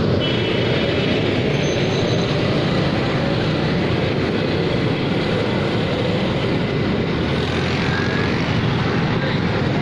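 Steady traffic and engine noise heard from a vehicle moving along a busy road, a dense, unbroken rumble.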